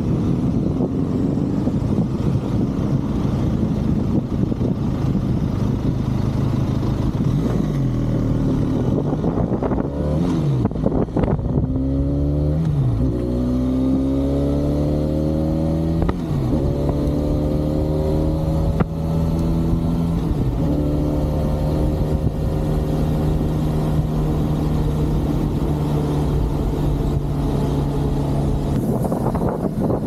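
Benelli 502C's parallel-twin engine under way, heard over wind noise at first. Around the middle the revs dip and climb again several times as it shifts up through the gears, then the engine settles into a steady cruise.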